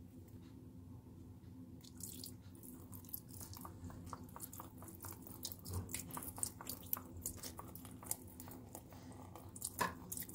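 Vinegar poured over raw meat slices, dripping and spattering in small irregular splashes that start about two seconds in.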